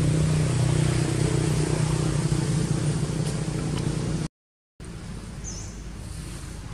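A motor vehicle's engine running with a steady low hum, which cuts off abruptly about four seconds in. After a brief silence, a quieter outdoor background with a single short high chirp.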